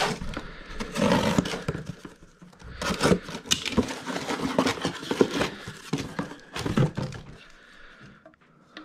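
A cardboard box being cut and torn open and unpacked: a run of sharp ripping and scraping sounds of cardboard and packing that die down near the end.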